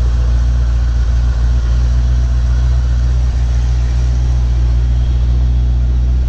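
1986 Chevrolet Corvette C4's 5.7-litre L98 V8 idling steadily after a cold start, not yet warmed up.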